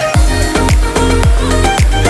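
Electronic dance music: a heavy beat comes in right at the start, about two kick drums a second, each with a falling bass sweep, over a deep bass and a higher melody.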